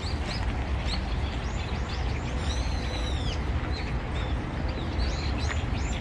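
Wild birds chirping and calling, with many short rising-and-falling notes and one longer arched call in the middle, over a steady low rumble.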